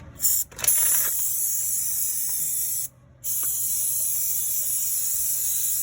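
Aerosol can of chain cleaner spraying onto a motorcycle chain: a short spurt, then long steady sprays with a brief pause about three seconds in.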